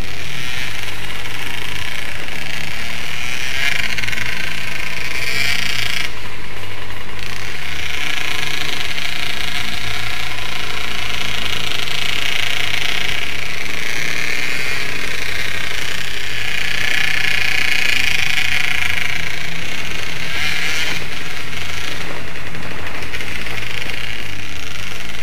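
Trail motorcycle engine running under way on a dirt trail, heard from the riding machine itself, its note swelling and easing several times with the throttle.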